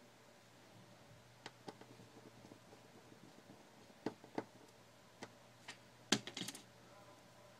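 Faint small clicks and taps of a screwdriver and tweezers on the opened iPhone 4's internals as the screws of its metal cover are taken out. A few scattered clicks, a pair about four seconds in, and a quick rattle of clicks a little after six seconds, the loudest.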